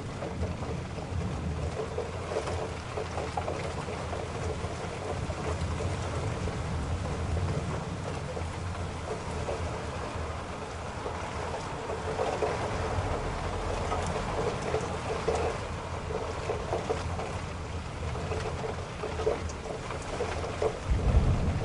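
Car driving through rain on a wet road: a steady low rumble of engine and tyres under a hiss of rain and water spray. A louder low rumble swells about a second before the end.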